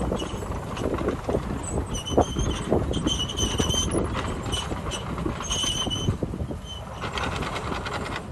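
Bulldozer running with a steady low engine rumble, its tracks knocking and giving short, repeated high squeals during the first six seconds or so.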